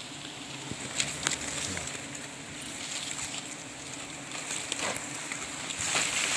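Giant honeybees buzzing in a steady hum around their open wild comb, with a few faint knocks.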